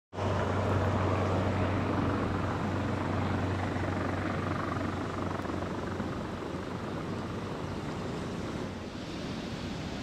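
Stream water rushing over a small concrete weir, a steady rushing noise, with a low rumble underneath that fades about halfway through.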